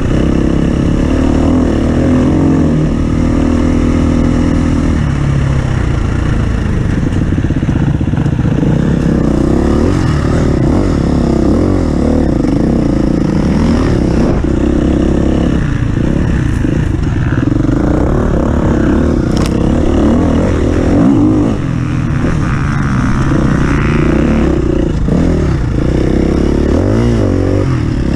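Off-road vehicle engine running under load, its pitch rising and falling as the revs change.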